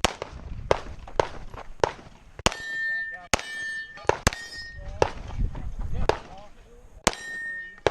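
Glock 19 9mm pistol firing about ten shots at an uneven pace, half a second to a second apart, with steel targets ringing with a clear tone after several of the hits.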